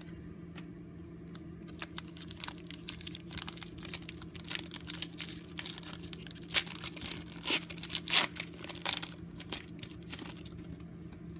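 Shiny plastic wrapper of a 2017 Score football card pack being torn open and crinkled by hand, in a run of sharp irregular crackles.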